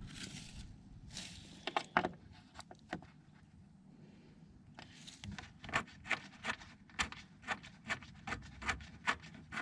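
Rustling and a couple of metal clinks as a socket is swapped. Then, from about five seconds in, a socket wrench ratchets in a steady run of sharp clicks, two or three a second, as a 10 mm bolt holding a plastic underbody cover is loosened.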